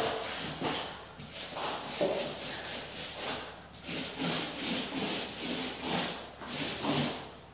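A 4-inch stiff synthetic-bristle paint brush swept back and forth over wet emulsion on a plaster wall: a run of short swishing strokes, about one or two a second. The strokes are laying off the paint to blend out brush marks.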